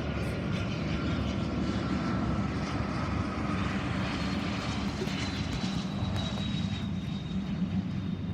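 Jet aircraft engines running, a steady rushing noise with a thin high whine that slowly falls in pitch.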